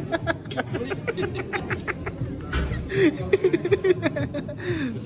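People laughing and chuckling in a quick run of short bursts, followed by a few drawn-out voice sounds that rise and fall in pitch.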